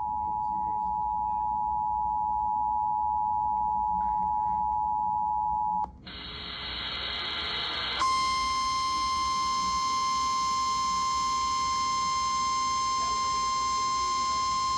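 Emergency Alert System two-tone attention signal, steady, cutting off about six seconds in. About two seconds of static follow, rising in level, then a single steady alert tone, the NOAA Weather Radio warning tone, starts and holds.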